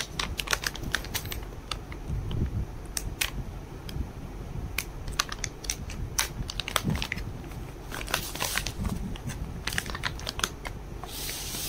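Plastic fish-food packet being handled, crinkling, with irregular sharp clicks and crackles that stop near the end.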